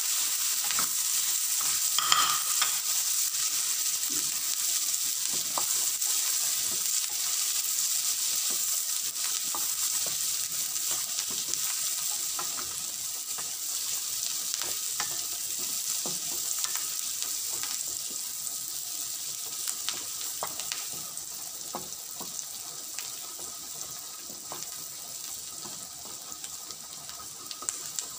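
Chopped onion sizzling in hot oil in an aluminium frying pan, with scattered scrapes and taps of a wooden spatula against the pan as it is stirred. The sizzle slowly gets quieter toward the end.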